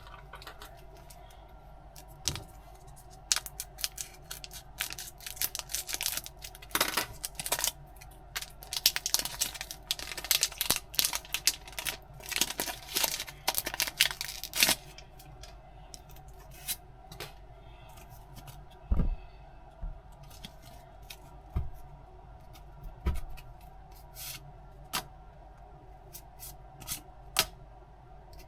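Packaging being handled and opened: a dense stretch of crinkling, crackling and tearing that lasts about twelve seconds, then scattered light clicks and taps with a few soft thumps, over a faint steady hum.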